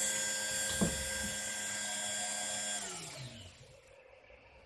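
Dremel rotary tool running with a high-pitched whine, with a single knock about a second in. About three seconds in it is switched off, and its pitch falls as the motor spins down.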